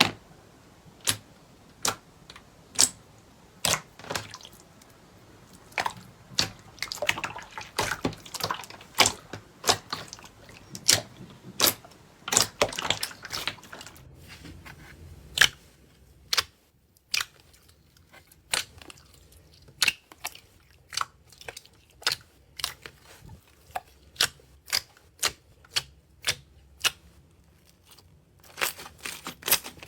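Slime being squeezed and poked by hand, giving sharp, wet pops and clicks about one to two a second, with denser crackling in the first half and sparser pops later.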